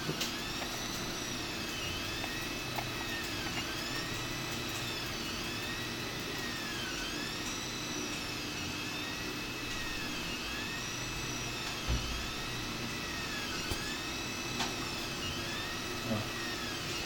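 Stepper motors of a homemade 3D printer whining as the print head moves back and forth. The pitch rises and falls in a smooth arc about every two seconds, over a steady high tone and a low hum.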